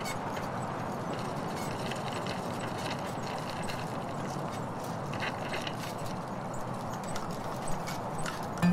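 Outdoor street ambience: a steady hiss of passing traffic with scattered light clicks and taps.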